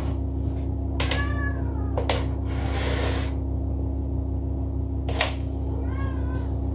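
Two short high-pitched calls that rise and fall in pitch, the first about a second in and the second near the end, over a steady hum. A few sharp clicks of a metal spoon against a mixing bowl.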